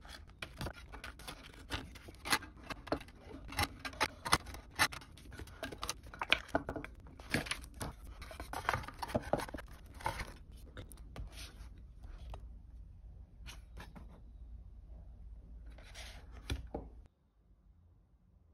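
Hands handling the parts of a picture frame: sharp clicks, taps and scrapes as the clear pane and the backing board are lifted out of and pressed into the black frame, with light rustling. The clicks come thick and fast at first, thin out after about eleven seconds, and stop about seventeen seconds in.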